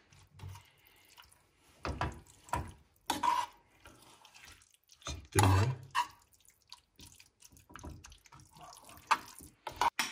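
Thick pasta in a creamy pecorino sauce being stirred and tossed with a metal spoon and fork in an aluminium pan: short, scattered wet, sticky stirring sounds with a few light scrapes and clicks of metal on the pan.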